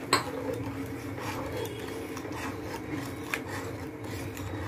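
Steel spoon stirring agar-agar mixture in a steel pot, scraping along the bottom, with a sharp clink of spoon on pot just after the start and a lighter one about three seconds later.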